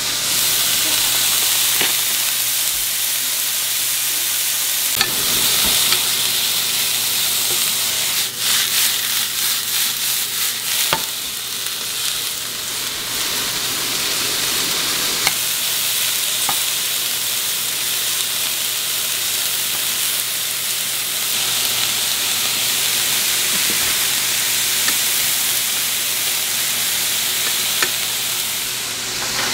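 Cubes of lean steak and asparagus sizzling steadily in a hot nonstick frying pan. A wooden spatula scrapes and clacks against the pan as the meat is stirred, with a quick run of scrapes between about eight and eleven seconds in.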